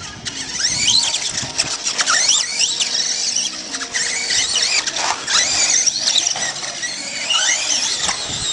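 Electric motors of several radio-controlled off-road cars whining, high pitches sliding up and down again and again as the cars accelerate and brake around a dirt track, with overlapping whines from more than one car.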